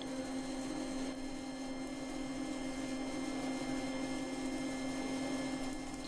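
Forge air blower running with a steady, unchanging hum and a faint whine, blowing the coal fire.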